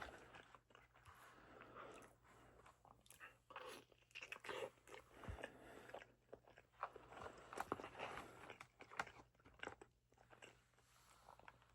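Faint chewing of a person eating close to the microphone: soft mouth noises with scattered small crunches and clicks.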